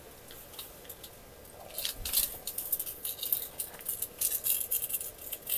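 Light, irregular clinks and clicks of dishes and utensils being handled on a table, starting about two seconds in.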